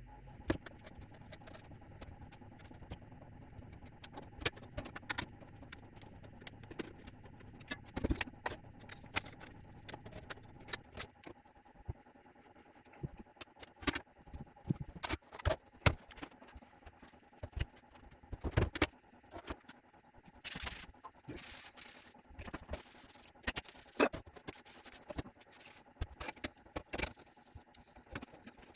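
Irregular light knocks, clicks and clatter of refrigerator shelves and bins being handled and cleaned, with a low hum that stops about eleven seconds in and a few short bursts of hiss near twenty seconds.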